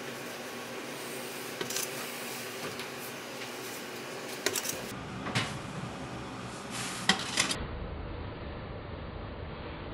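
Metal icing spatula clinking and scraping a few times as a chocolate-iced cake is smoothed, over a steady kitchen room hum.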